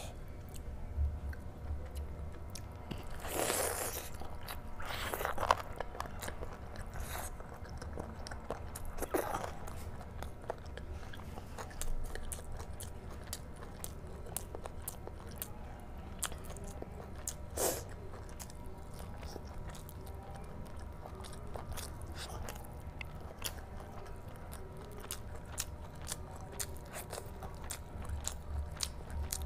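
Close-miked eating: chewing meat curry and rice eaten by hand, with wet mouth clicks and smacks throughout and a few louder, longer wet sounds about three to five seconds in, near nine seconds and near the middle.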